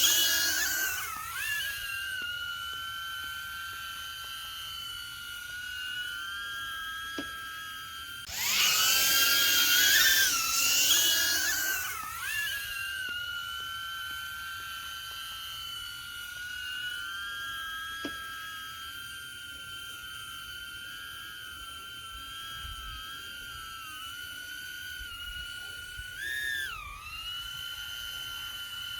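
DJI Mini 2 quadcopter in flight, its motors and propellers whining steadily as several close high pitches. About eight seconds in the whine gets much louder for about four seconds while the pitches wobble, and near the end the pitch dips briefly and recovers.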